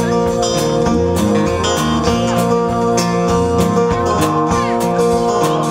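Music: a song with guitar over a steady bass and a regular beat.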